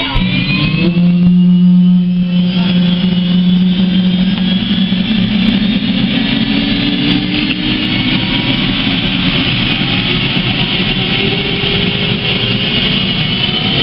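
Helicopter engine and rotor running loudly, a steady hum with tones whose pitch climbs slowly as it spools up.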